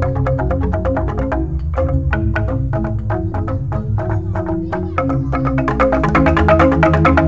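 Balinese jegog ensemble of bamboo xylophones struck with mallets, playing a fast dense pattern of notes over the sustained deep tones of the large bass tubes. The playing thins out for a few seconds, then comes back fuller and louder about five seconds in.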